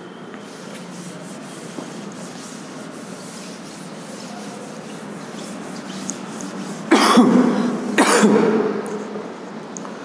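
Cloth duster rubbing across a chalkboard, a steady soft scrubbing as the board is wiped clean. About seven seconds in come two loud short bursts, a second apart.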